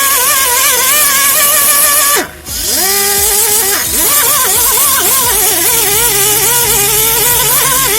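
Handheld electric rotary power tool running with a wavering pitch under varying load. About two seconds in it slows sharply and briefly cuts out, then speeds back up and keeps running.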